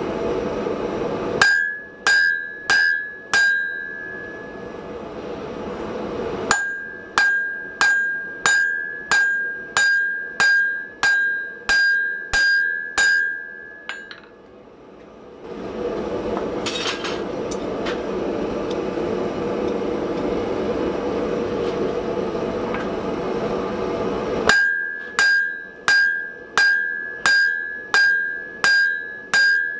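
Hand hammer blows on a hot steel block on a French anvil, each blow ringing with a clear, high note. The blows come in three runs of about four, eleven and ten strikes, roughly two a second. A steady rushing noise fills the gaps between runs.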